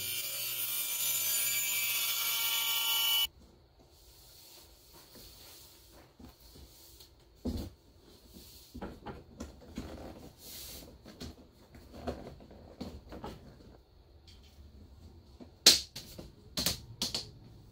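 Table saw running with a steady whine for about the first three seconds. Then quiet handling of thin pine strips against a wooden frame, with light knocks, and several sharp clicks of spring clamps near the end.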